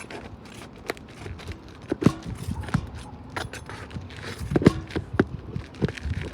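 Irregular knocks, clicks and scrapes of hand tools working roofing nails out from under 3-tab shingles.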